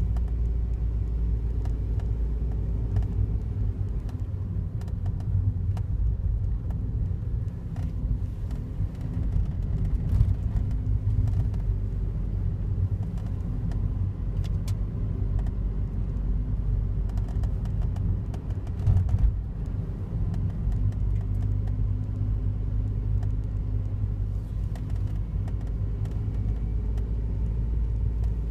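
Daihatsu Wake's 660 cc three-cylinder engine running with a steady low rumble and scattered faint clicks, recorded to catch an unexplained abnormal noise that the owner hears every morning.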